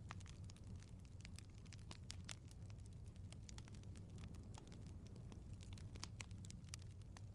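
Faint wood fire crackling in a fireplace: irregular sharp pops and snaps, several a second, over a soft low rumble of the flames.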